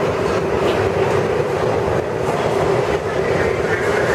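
Steady loud hum and rumble of a 1964 Budd R32 subway train standing at an underground platform with its doors open, its level unchanging.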